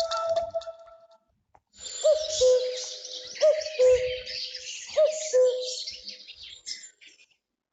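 Honor smartphone ringtone made of birdsong: high chirping twitter over low cooing hoots in three pairs. A mallet-like ringtone melody fades out in the first second before it.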